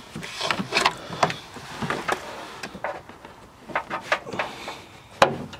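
Handling noises from hands working around a car's engine bay: rustling, light knocks and clicks against parts and trim, with one sharp click about five seconds in.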